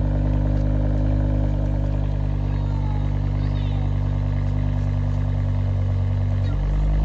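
BMW E60 M5's 5.0-litre V10 idling steadily through a Tubi exhaust, warming up after a cold start. Its low drone gets louder about six and a half seconds in.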